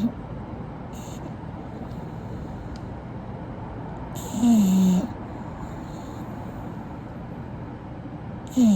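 English bulldog snoring: a loud snore with a tone that drops in pitch about four seconds in, and another beginning near the end.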